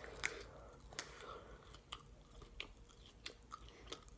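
Close-up chewing of a mouthful of raw, spiny cactus: a string of faint, sharp crunches, roughly two a second, the loudest just after the start.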